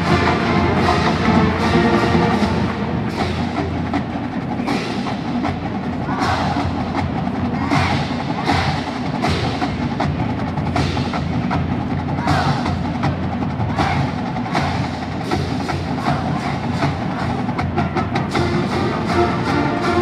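Marching band playing: brass chords at first, then a stretch carried mostly by sharp, regular drum and percussion strikes, with the brass chords returning near the end.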